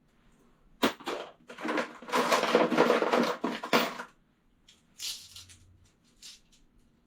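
Loose metal sockets clattering in a plastic toolbox as a hand rummages through them: a sharp clack about a second in, then a few seconds of continuous rattling, and a few more clinks near the end.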